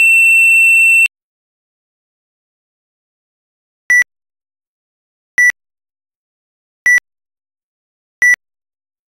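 Electronic beeps: one steady beep about a second long, then, after a silent pause, four short, lower beeps about a second and a half apart.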